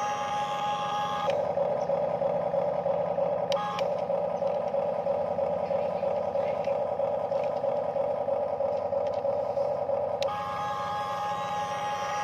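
Huina radio-controlled toy excavator's electric motors and gearboxes whining steadily as the upper body turns. A second, higher-pitched whine stops about a second in and starts again near the end, with a sharp click about three and a half seconds in.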